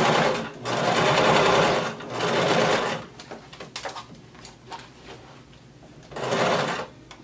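Electric domestic sewing machine stitching a seam through denim in stop-start runs as the seam nears a pin: three runs of sewing, then a pause of about three seconds with a few small clicks, then one more short run near the end.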